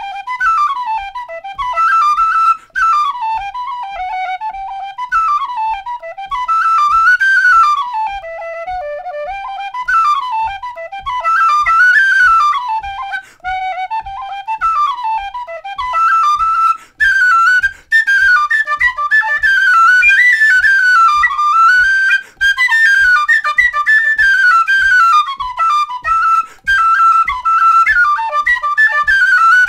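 Jerry Freeman Mellow Dog tin whistle, a wide-bore whistle with a slightly hoarse tone, playing a brisk Irish reel in quick runs that move between the low and upper octaves. A soft low tap about twice a second keeps time underneath.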